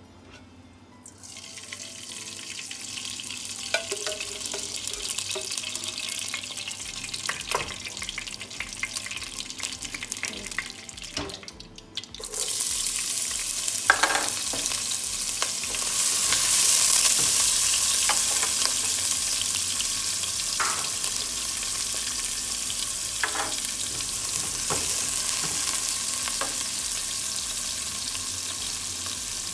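Desi ghee heating in a nonstick pot with a faint sizzle, then a loud, steady frying sizzle once sliced onion goes into the hot ghee about 12 seconds in. A few sharp knocks of a spatula against the pot sound through the sizzle.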